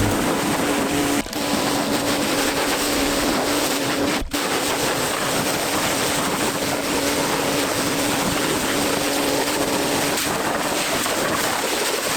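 Nilfisk E145.4 pressure washer running: a steady motor-pump hum under the loud hiss of the high-pressure water jet, dipping briefly twice, about one and four seconds in.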